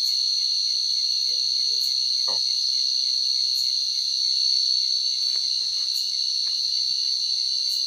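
Night insect chorus, a steady, shrill, unbroken high-pitched buzzing of many insects, crickets or similar, with no break.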